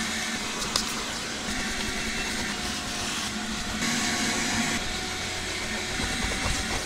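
Shop vacuum running steadily while its nozzle is worked over car carpet.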